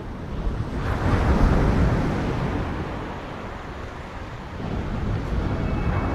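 Sea surf: a wave breaks about a second in and washes out over a few seconds, and the next one builds near the end.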